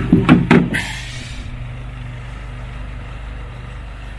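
Several sharp clattering knocks in the first second, followed by a steady low hum.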